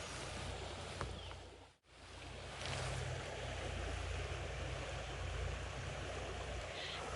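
Small creek running steadily, with wind rumbling on the microphone; the sound cuts out for a moment about two seconds in.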